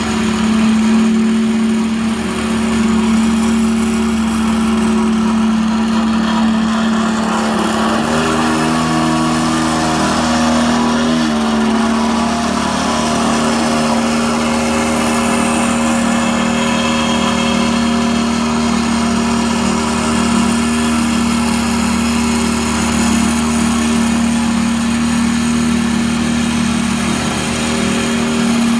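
Small petrol engine of a walk-behind double-drum roller running steadily as the roller compacts bare soil, its tone shifting for a few seconds about eight seconds in.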